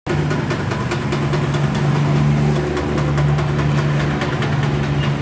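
Road traffic, with a vehicle engine idling close by in a steady hum and scattered clicks over it.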